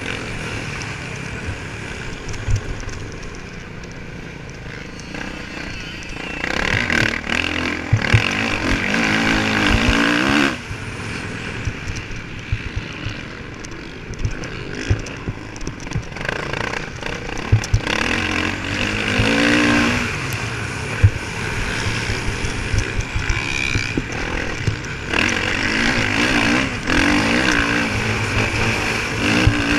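Motocross bike engine heard up close from the onboard camera during a race lap, revving hard in several surges and easing off between them as the rider works the throttle around the track. Wind rushes over the microphone, with scattered sharp knocks from the bike.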